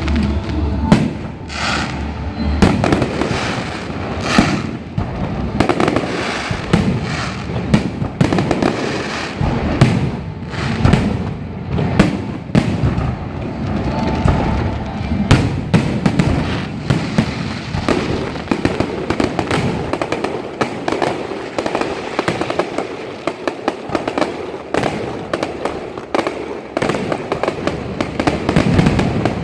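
Firecrackers and aerial fireworks going off in a continuous, rapid string of bangs and pops over a dense crackle, set off as a firecracker salute for a passing temple procession.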